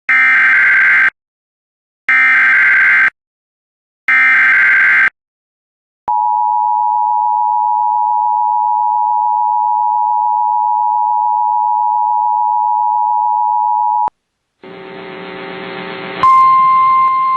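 Emergency Alert System alert tones. Three one-second bursts of buzzy SAME header data come two seconds apart, then the steady two-tone EAS attention signal sounds for about eight seconds. Near the end a noisy hiss rises, and a single steady higher tone cuts in over it.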